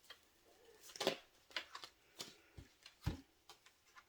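Tarot cards being shuffled and handled: a string of soft, irregular snaps and taps, about one every half second.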